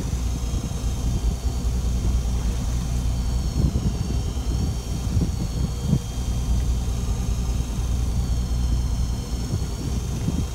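Fishing boat's engine running with a steady low rumble, with a faint high whine above it that dips and rises in pitch a few times.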